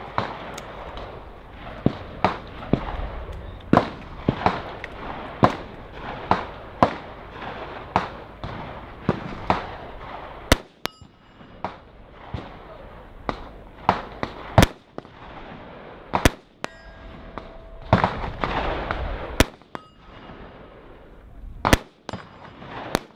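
AR-15 rifles firing from the prone line: a long, irregular string of sharp shots, about one or two a second. From the middle on a few shots are much louder than the rest.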